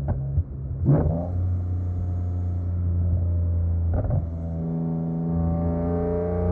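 BMW E46 M3's S54 straight-six with a Supersprint exhaust, driven on the road. It runs at steady revs, with a short sharp burst about a second in and again about four seconds in. Near the end the revs climb steadily as it accelerates.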